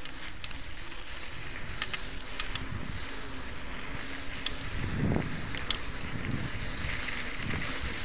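Mountain bike riding down a dirt singletrack: tyre noise on the dirt and leaf litter with wind on the microphone, and scattered sharp clicks and rattles from the bike over bumps, with a louder gust or bump about five seconds in.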